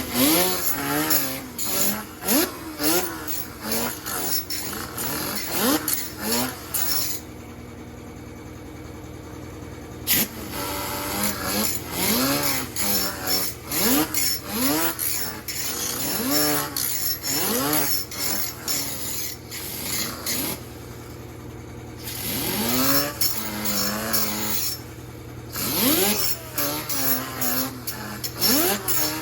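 Air compressor running steadily, with repeated metal-on-metal scraping strokes over it, about one a second, as the burr is taken off a chainsaw bar's rail. The strokes stop for a few seconds about a quarter of the way in and again briefly past two thirds.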